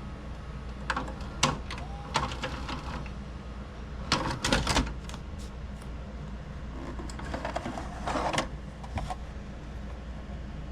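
Memorex four-head VCR ejecting a VHS cassette: the tape-loading mechanism gives a series of scattered mechanical clicks and clunks, with a few short whirring spells of its motor, as the tape is unthreaded and the cassette comes out.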